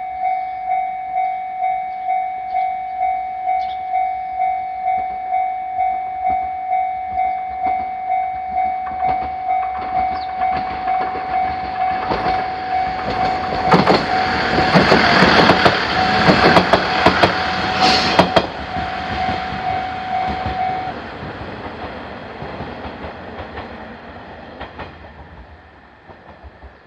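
Japanese railroad crossing's electronic warning bell ringing in a steady repeating beat, about three rings every two seconds, while a JR Koumi Line train passes with a loud clatter of wheels over rail joints for several seconds midway. The bell stops about 21 seconds in, and the train sound fades away. This is a third-class crossing, with alarm and lights but no barriers.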